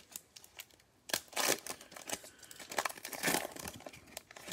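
Plastic cello wrapper of a trading-card pack being torn open and peeled back, crinkling, with louder bursts of crinkle about a second in and again just past three seconds.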